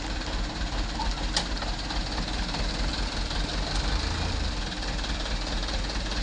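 Diesel truck engine idling steadily, with a single sharp click about a second and a half in.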